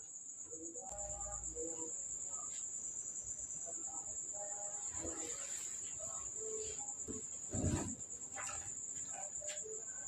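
Crickets trilling in one steady high tone, with faint scattered clinks and a louder knock about three-quarters of the way through.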